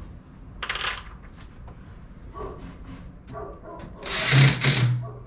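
A power tool runs for about a second near the end, a hiss with a steady low hum, while wire lath is fastened over a hole in a stucco ceiling. A shorter scraping burst comes about a second in.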